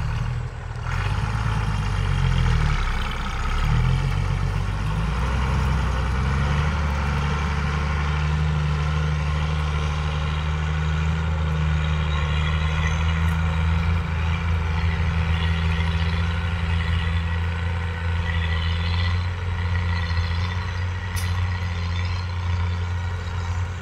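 Diesel engine of a truck heavily loaded with sugarcane, pulling away across a field under load. Its note shifts over the first few seconds, then runs steady.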